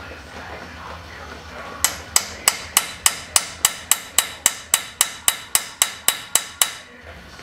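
A hammer repeatedly strikes a small stainless steel punch held against the edge of a Dana 44 front axle spindle, driving it around the spindle to break it free of the steering knuckle. The taps come as a fast, even run of about eighteen sharp, ringing metal-on-metal strikes, roughly three a second, starting about two seconds in. The spindle is stubborn and has not yet let go.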